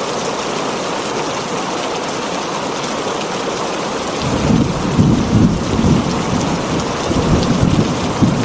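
Heavy rain drumming steadily on a tin roof. About halfway through, a low rolling rumble of thunder comes in and goes on to the end.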